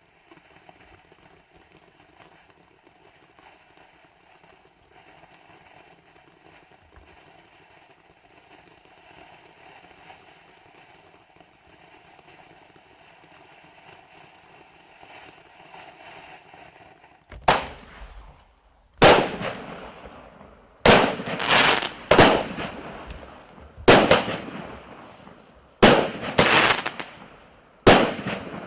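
Fountain firework (P6736 "Vinni Bukh") going off: after a long stretch of faint steady hiss, a series of about ten loud, sharp bursts, each fading quickly, coming one to two seconds apart.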